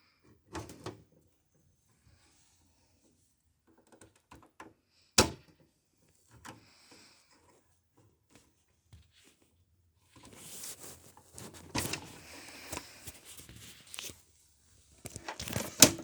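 Hands working on a small-form-factor desktop computer case: scattered clicks and knocks, a sharp clack about five seconds in, a few seconds of scraping and rattling, and a loud clatter near the end.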